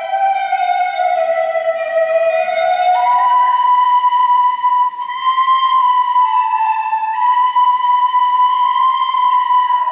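Instrumental folk melody played in two parallel lines of long, steady held notes on a wind or reed instrument, with no singing.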